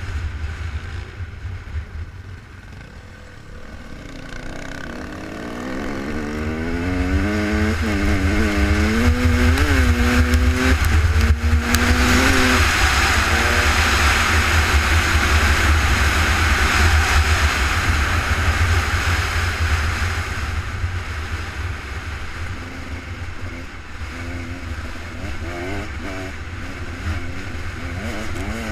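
Off-road vehicle engine revving up and down several times over a low rumble, then a loud stretch of hard running about halfway through that fades off, with a few more revs near the end.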